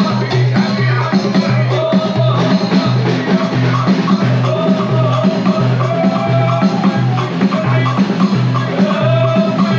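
Moroccan Dakka Marrakchia troupe performing: hand drums beat a steady repeating rhythm under men's group chanting.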